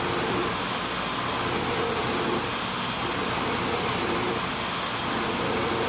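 Milling machine running steadily as its cutter mills the helical thread of a traverse shaft.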